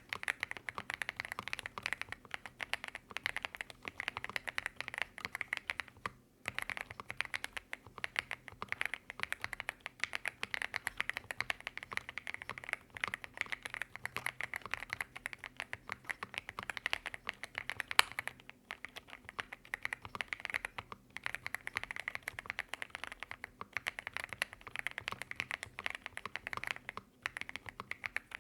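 Continuous fast typing on a Monka A75 aluminum-bodied mechanical keyboard with stock Snow Leopard linear switches: a dense run of key clacks broken by a few short pauses, with one much louder clack about two-thirds of the way through.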